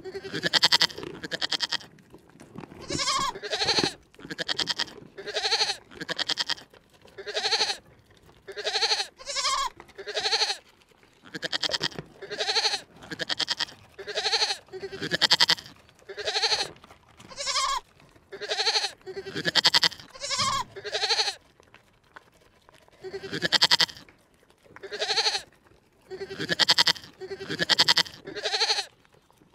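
An animal bleating over and over, short wavering calls about one a second, with a brief pause about two-thirds of the way through.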